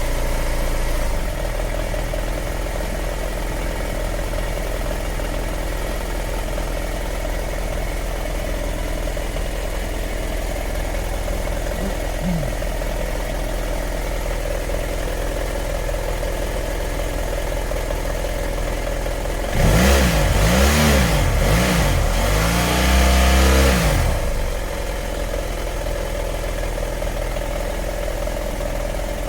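BMW F700GS parallel-twin engine idling, then blipped by the throttle three times in quick succession about twenty seconds in, followed by a longer rev before it settles back to idle. The idle is rough with occasional misfires, which the owner traced to a failing ignition coil.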